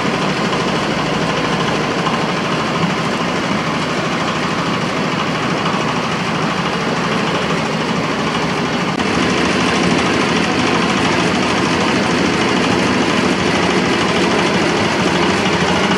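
8 hp diesel engine running steadily as it drives a peanut-shelling machine, with the rattle of the machine at work. It gets a little louder from about nine seconds in.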